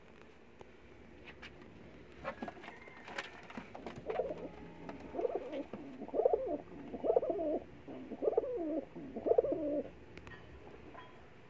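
Domestic pigeon cooing: a run of about six wavering coos from about four seconds in until near ten seconds, after a few faint clicks.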